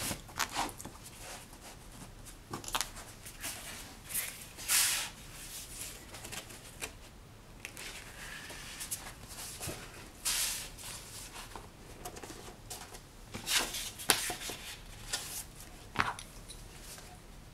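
Folded signatures of heavy black Stonehenge paper rustling and sliding as they are handled and laid on the sewing stack. The rustles come irregularly, the longest about five and ten seconds in, with a few light taps in between.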